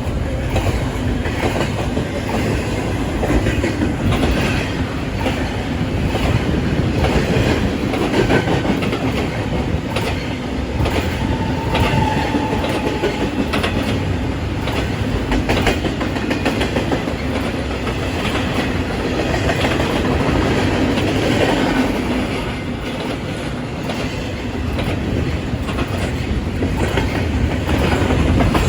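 A train rolling past, its wheels clattering over rail joints in a steady run of clicks, with a brief faint squeal partway through.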